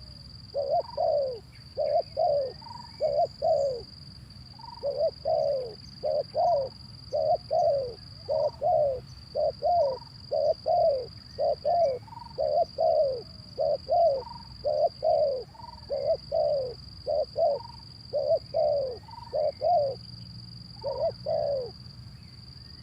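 Male spotted dove (derkuku) cooing over and over: short, falling coos in clusters of two or three, with brief pauses between clusters. A steady high-pitched whine runs underneath.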